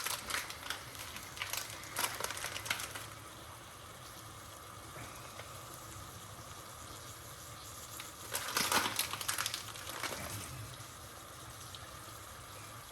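Onions frying in a pan with a low, steady sizzle. Several sharp clicks and scrapes come in the first three seconds, and a louder scraping burst about eight seconds in.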